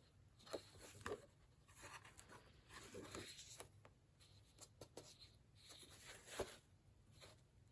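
Faint, scattered rustling and a few soft taps of an old book's thick paper pages being leafed through and handled.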